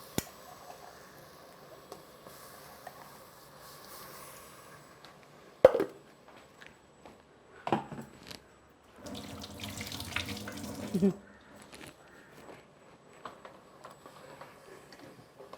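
Kitchen sounds: a sharp knock of a utensil, a second knock two seconds later, then a kitchen tap running for about two seconds.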